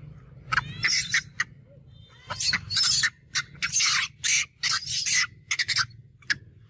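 Long-tailed macaque giving a run of short, loud, high-pitched screams while another macaque pins it and grapples with it: distress screaming in a rough tussle.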